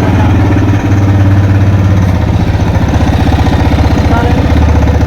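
TVS Raider 125's single-cylinder engine idling steadily with a rapid, even pulsing. It makes the timing-chain noise that the mechanic traces to a timing chain that is worn out and broken down.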